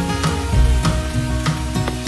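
Instrumental background music with a beat, over greens and sauce sizzling in a hot frying pan.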